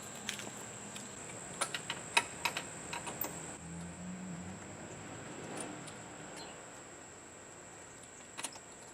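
Scattered light clicks and clinks, several in the first three seconds and a pair near the end, over a steady high-pitched whine.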